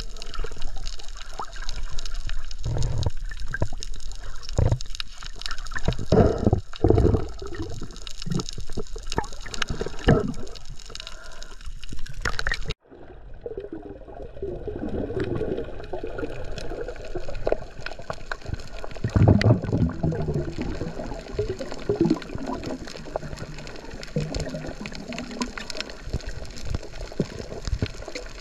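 Water splashing and bubbling against a GoPro camera as snorkelers swim near the surface. About halfway through the sound cuts off abruptly and comes back as a duller, steadier underwater gurgle and hiss.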